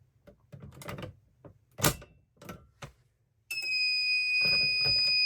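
Several short clicks and knocks, then about three and a half seconds in a fire alarm sounder starts a steady high electronic tone that holds on, with a couple more knocks over it.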